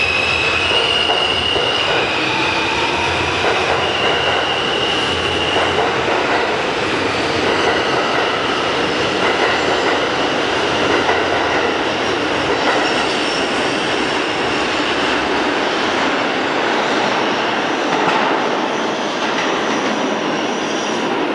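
R160B subway train with Alstom ONIX propulsion accelerating out of the station past the platform. For the first few seconds the motors whine in steady high tones that jump up in pitch in steps, under the loud, steady rush of the cars and wheels going by on the rails.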